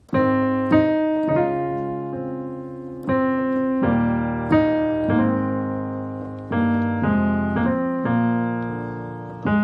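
Piano playing a slow gospel chord passage: about a dozen chords, each struck and left to ring, including a D♭ major 2nd and an E♭ over G.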